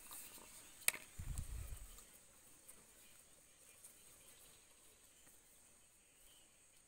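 Faint outdoor ambience with a steady high insect hiss. About a second in there is a single sharp click, followed by a brief low rumble.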